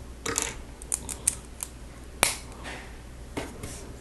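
Plastic Lego bricks clicking and rattling as pieces are handled: a scatter of small ticks, with one sharp snap about two seconds in.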